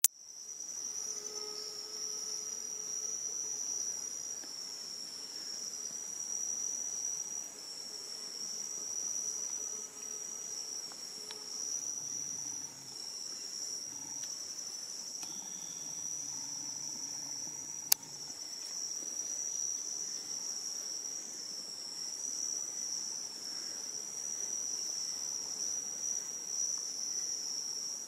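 Night insect chorus: a steady, high-pitched trilling that goes on unbroken, with a single sharp click about 18 seconds in.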